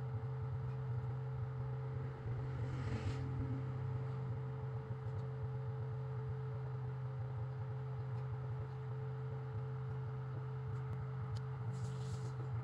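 Steady low hum, with a fainter steady tone above it, and brief soft rustles about three seconds in and again near the end.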